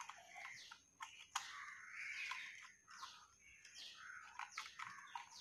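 Faint birds chirping in short rising and falling calls, with a few small clicks, one clear one about a second and a half in, as wire is worked into a switch-board terminal.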